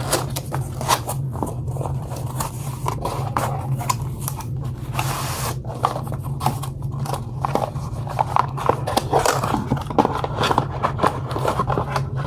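Laptop packaging being opened and handled: cardboard scraping and rustling with many short clicks and knocks, and a brief rasp about five seconds in, over a steady low hum.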